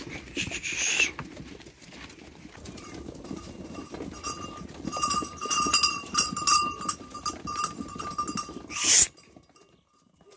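A bell on one of the sheep clanking again and again as the flock walks, with a loud rustle about nine seconds in.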